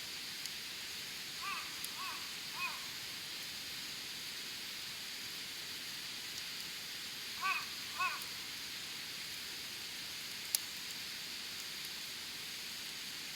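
Wood campfire burning with a steady hiss and a single sharp crackle about ten seconds in, while a bird calls with short arched calls, three about two seconds in and two more near the middle.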